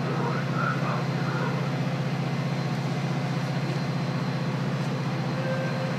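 Steady low rumble of trains at a station platform, where a freight train of covered hopper cars runs alongside a standing Metra bilevel commuter train.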